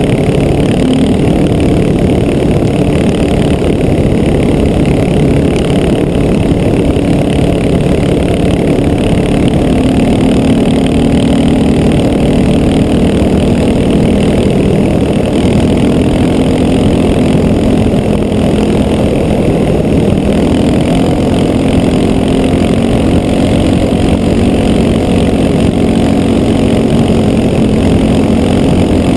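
Honda XR650L's air-cooled single-cylinder four-stroke engine running at a steady cruise, its pitch rising and falling a little with the throttle, mixed with wind and road rush.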